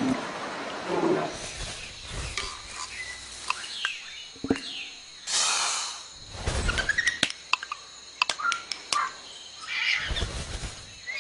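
A string of added sound effects: short chirps, sharp clicks and rising whistles, with a rushing noise about five seconds in.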